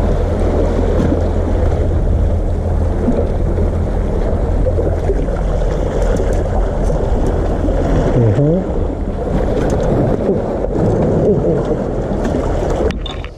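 Wind buffeting the microphone with a steady low rumble, over sea water surging and washing among concrete breakwater tetrapods.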